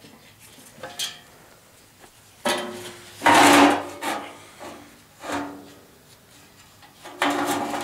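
Metal scraping and clanking of a furnace blower housing and blower wheel as the new blower motor's shaft is worked into the wheel's hub. There are a few light clicks, then several separate scrapes carrying a ringing note, the loudest about three seconds in.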